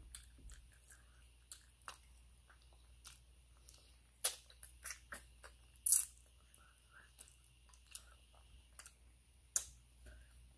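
Close-up mouth sounds of eating with the hands: scattered wet smacks and clicks while chewing a mouthful of soup and goat meat, the loudest about four and six seconds in.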